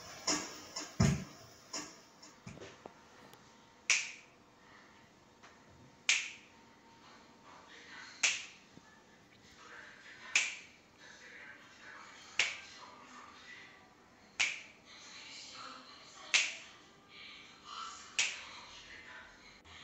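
Finger snaps keeping a slow, even beat, about one every two seconds, over a faint music bed.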